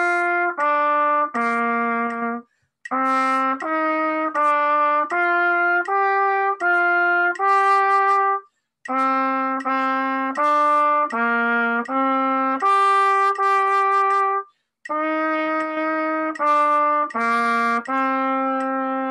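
Solo B-flat trumpet playing a band piece's melody: a line of separate tongued notes in phrases, broken by three short breath pauses, ending on a held note.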